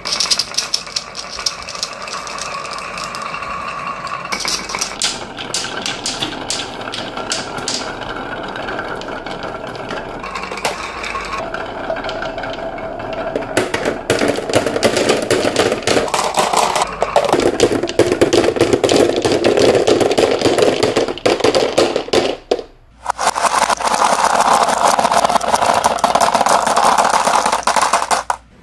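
Many marbles rolling and clattering down a toy marble run, a dense rattle of clicks and ticks. It breaks off for a moment near the end, then starts again.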